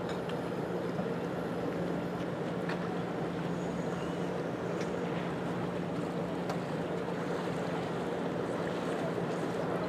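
Wind and water noise on open water, over a steady low hum.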